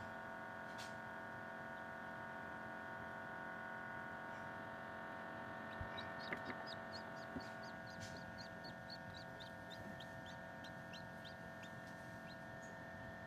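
Newly hatched Silkie chick peeping: a quick run of short, high peeps starting about halfway through, over the steady hum of the incubator. A few soft knocks come as the peeping begins.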